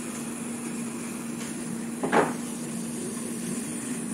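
Hot air rework station blowing steadily, with a constant low hum and a faint high whine, as its nozzle heats a phone's back glass to soften the adhesive. A brief louder sound about two seconds in.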